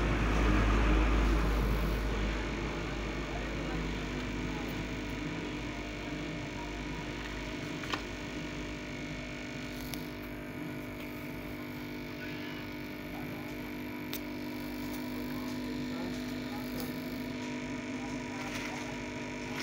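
Hot-air rework station blowing steadily on a phone board's power IC to reflow its solder, a steady whir with a low hum. A couple of light clicks partway through.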